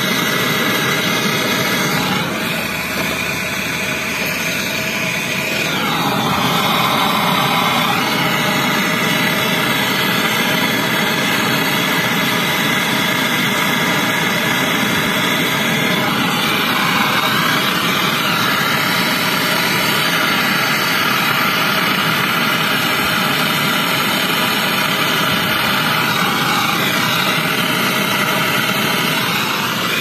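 Gas brazing torch burning with a steady hiss while copper refrigerant pipe joints of an air-conditioner are brazed, its tone shifting slightly a few times.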